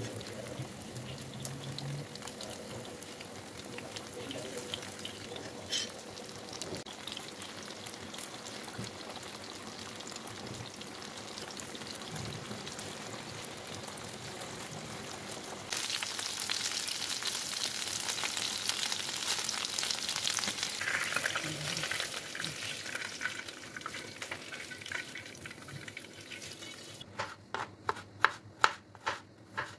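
Chicken pieces frying in hot oil in a non-stick pan: a steady sizzle that gets louder about halfway through. Near the end, a chef's knife slices garlic cloves on a wooden cutting board, a quick run of knocks.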